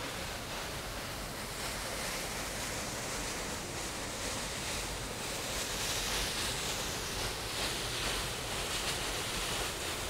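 Steady rush of water falling through a partly frozen waterfall, a little louder in the second half.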